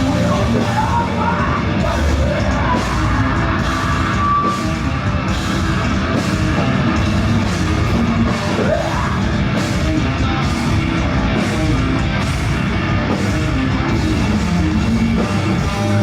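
Loud live heavy rock band: distorted guitars, bass and drums with cymbals struck about once or twice a second, and yelled vocals.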